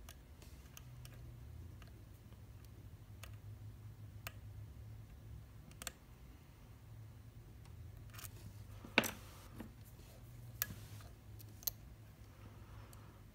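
Sparse small metallic clicks and taps from picking tools and an Abus C73 padlock being handled and worked, the sharpest click about two-thirds of the way through, over a faint steady low hum.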